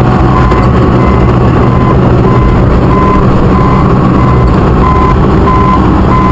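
Caterpillar bulldozer's diesel engine running steadily under way in high gear, loud and close as heard from on board, with the rumble of the machine moving; a high tone comes and goes over it.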